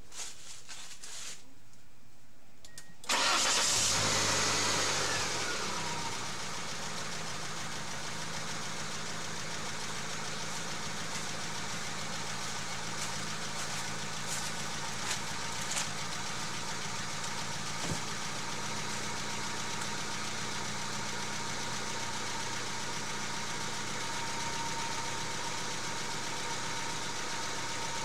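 Volkswagen Passat engine cranked by its starter, starting suddenly about three seconds in and then turning over steadily without catching. The owner takes the even cranking as a sign that there is little or no compression, with the battery low as well.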